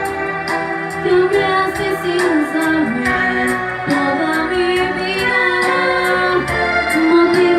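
A girl singing into a microphone over a backing track with a steady beat, holding long notes and sliding between them.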